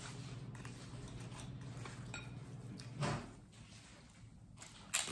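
Quiet chewing of toast over a low steady hum. A dull knock comes about three seconds in, and a sharp click near the end.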